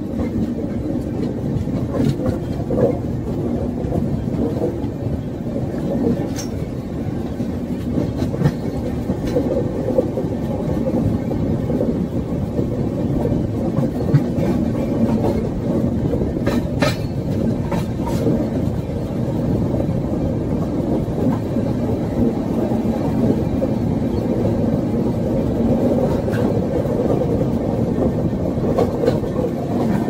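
Passenger train running at speed, heard from aboard the coach: a steady deep rumble of wheels on rails, with a few sharp clicks scattered through it.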